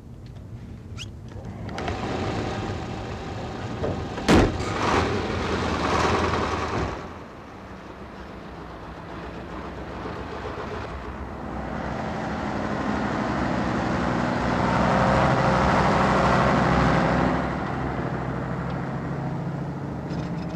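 Heavy vehicle engine running, with a cab door slamming shut once about four seconds in. The engine noise grows louder from the middle and eases off a few seconds before the end.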